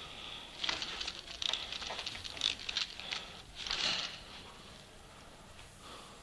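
Scattered airsoft gunfire: irregular rapid clicks and rattles in short bursts for about three seconds, dying away after about four seconds.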